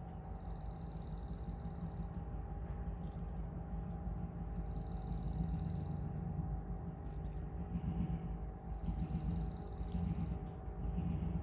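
A bird singing three long, steady, high notes, each about two seconds, a few seconds apart, with a few faint clicks, over a low background rumble.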